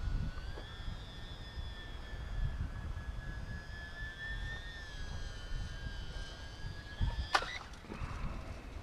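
Electric RC model plane's brushless motor and propeller whining steadily in flight, the pitch rising a little and easing off, over a low rumble. Near the end there is a sharp knock and the whine stops.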